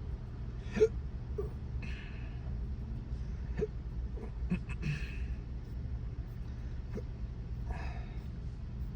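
Steady low rumble of a car cabin while driving, with a few small clicks and brief rustles scattered through it.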